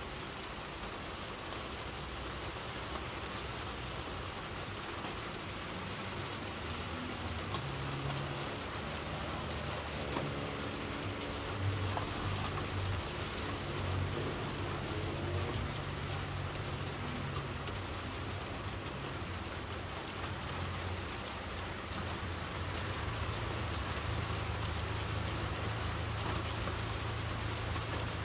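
Steady rain pattering on a surface, an even hiss, with a low rumble coming in underneath about a quarter of the way in.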